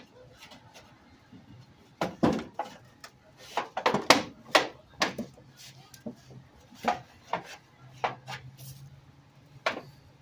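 Irregular knocks and clunks of a metal register vent being worked and tapped into its wooden frame, several in quick succession about four seconds in and a few more near the end.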